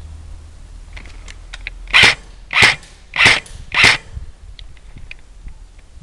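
Four airsoft gun shots fired in a quick, even series about 0.6 s apart, starting about two seconds in.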